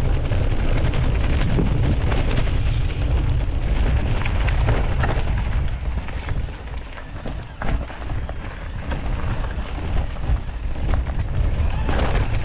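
Mountain bike riding a rough trail: wind buffeting the microphone and tyre rumble, with frequent clatters and knocks from the bike. It eases for a couple of seconds about halfway through, then builds again.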